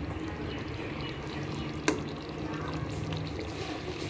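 Thick brinjal curry simmering in a metal pot while a ladle stirs it, with a wet bubbling, stirring sound over a low steady hum, and one sharp knock about two seconds in.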